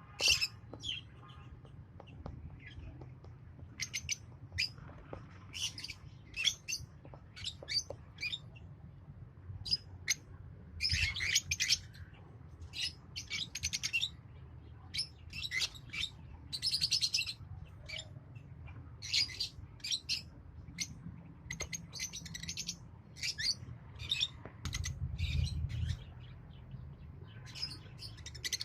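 Lovebirds chirping: many short, high chirps and calls in quick, irregular succession, over a low steady hum.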